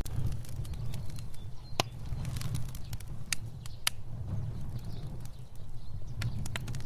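Fire burning, with a steady low rumble of flames and irregular sharp crackles and pops, the loudest about two seconds in.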